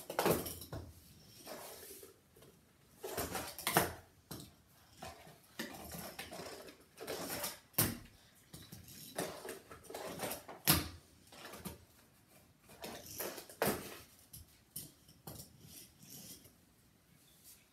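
A fingerboard's deck and wheels clacking and tapping on cardboard ramps and a felt tabletop: irregular sharp clacks every second or two as tricks are tried and landed.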